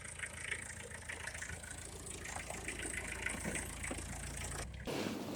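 Farm tractor engine running steadily with a low, even hum, cutting off abruptly near the end.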